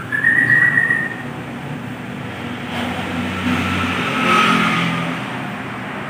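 A clear whistled note, falling slightly in pitch, lasting under a second near the start. Under it runs the low drone of a passing motor vehicle, which swells about halfway through and then eases off.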